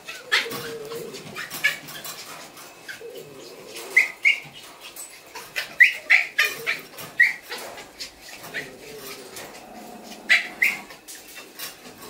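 Miniature schnauzer puppies yipping and squeaking as they play-fight, in short high-pitched cries that come in little clusters, a few seconds apart. Many light clicks and scuffles run under them.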